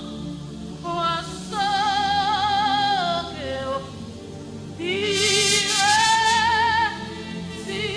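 Gospel worship singing: a vocalist sings long, held notes with vibrato over sustained instrumental chords, in two loud phrases with a quieter pause between.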